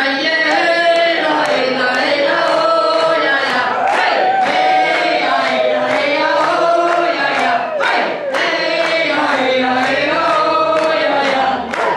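Many voices singing a refrain together in a sing-along, with a regular beat under it.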